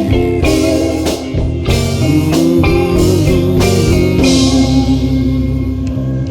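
Stoner rock band playing live and loud with no vocals: an electric guitar plays a bending, wavering lead line over sustained bass notes and drums, with repeated cymbal crashes.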